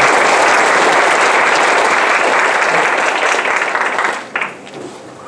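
Audience applauding, a roomful of people clapping that dies away about four seconds in, with one last stray clap.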